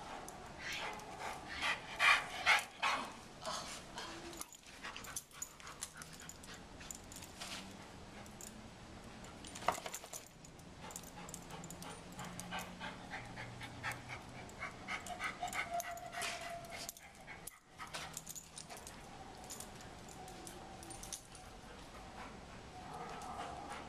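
Large black dog panting in quick repeated breaths, loudest a second or two in, with a few short high whines later on.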